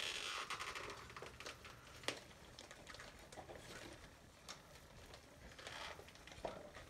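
Faint rustling handling noise with a few scattered clicks, the sharpest about two seconds in.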